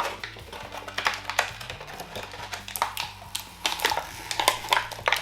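Irregular clicks and taps of hands working at plastic toy packaging to get it open.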